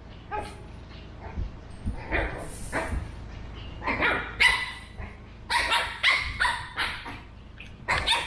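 A pug puppy and a Shih Tzu mix barking and yipping at each other in short high-pitched calls: a few scattered yips at first, then a quick run of barks in the second half.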